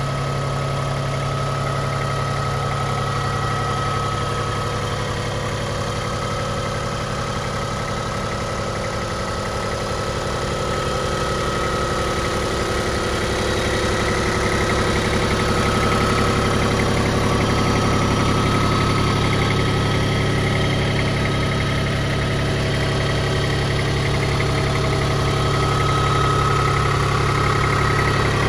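Iseki TPC153 crawler tractor's three-cylinder diesel engine idling steadily, a little louder from about halfway through.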